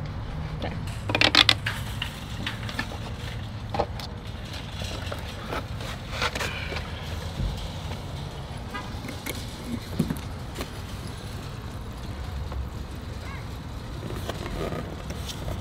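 Scattered clicks and knocks of a plastic fluid jug and its pour spout being handled at the truck's filler, the sharpest cluster about a second in, over a low steady rumble.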